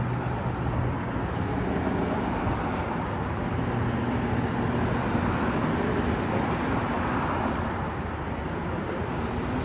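Steady street traffic noise with a low vehicle engine hum.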